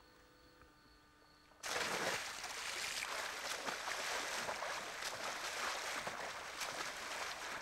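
A person diving into a swimming pool: a sudden loud splash about a second and a half in, then continuous splashing and churning water as she swims.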